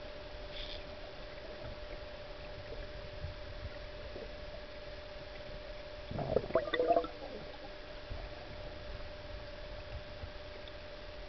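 Underwater sound with a faint steady hum, broken about six seconds in by a brief burst of bubbling and gurgling from a diver's gear, lasting about a second.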